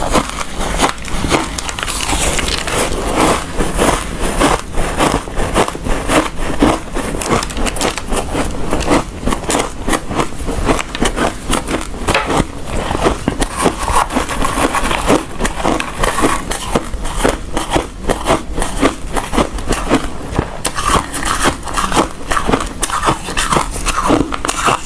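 A person chewing hard ice, a rapid, unbroken run of loud, crisp crunches.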